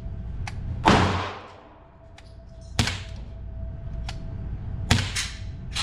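Glock pistol shots: three sharp reports about two seconds apart, the first the loudest with a long echoing tail, with a few fainter clicks between them.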